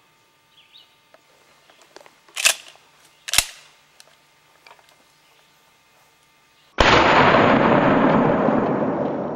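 Two sharp clicks about a second apart, then a sudden loud shotgun blast near the end that dies away slowly over several seconds.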